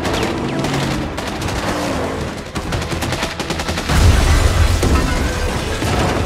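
Film action-scene sound effects: rapid automatic gunfire, then about four seconds in a heavy low boom as an armored truck smashes through with dirt and debris flying.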